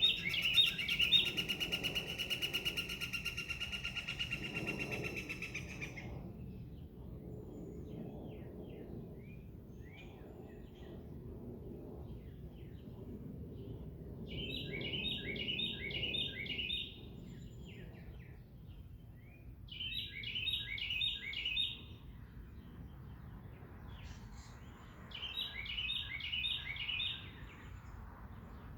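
Songbirds singing: a long, rapid buzzy trill for the first six seconds, then, after a few faint calls, three short song phrases of quick downward-slurred notes repeated about five seconds apart.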